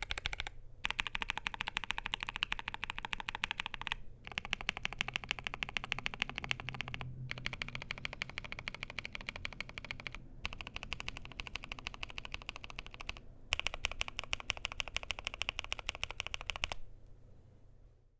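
Fast typing on a NuPhy Air75 V2 low-profile mechanical keyboard with NuPhy Cowberry switches, an aluminium plate and PBT keycaps. The key clacks come in quick runs of a few seconds, with brief pauses between them, and stop about a second before the end.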